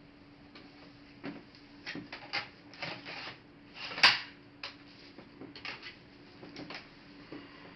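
Laptop parts and tools being handled during disassembly: a run of small clicks and scrapes, with one louder knock about four seconds in, over a faint steady hum.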